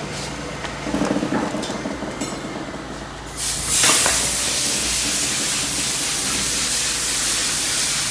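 A low steady hum with a few knocks and clatter. About three and a half seconds in, a loud, steady hiss starts suddenly and keeps going.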